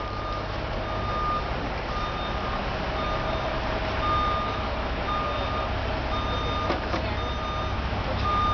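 Truck reversing alarm beeping steadily, about one beep a second, over a low engine rumble.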